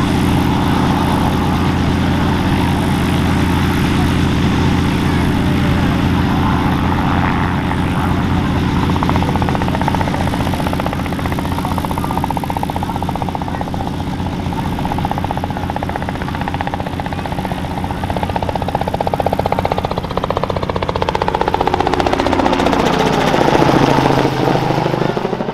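Robinson R44 Clipper II helicopter, with its six-cylinder Lycoming IO-540 engine, flying by: a steady rotor and engine drone that gets louder as it comes in low. Near the end it passes overhead, at its loudest, and its pitch drops.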